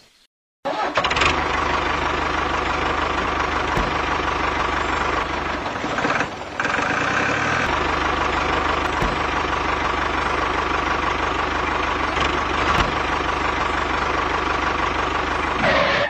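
Tractor engine running steadily. It starts abruptly just after the start, dips briefly about six seconds in, and cuts off sharply at the end.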